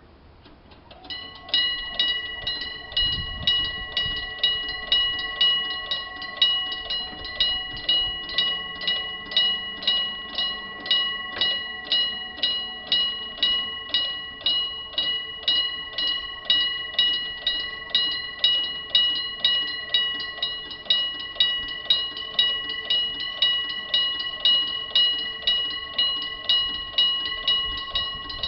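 Electric-bell railway level-crossing alarm starting about a second in and ringing continuously with rapid, evenly repeated strikes on the bell: the crossing's warning that a train is approaching.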